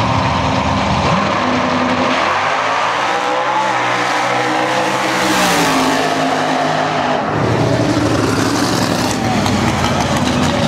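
Two drag-racing cars launching off the line and accelerating hard down the strip, engine pitch climbing and then falling away as they pass, followed by a heavy low engine rumble.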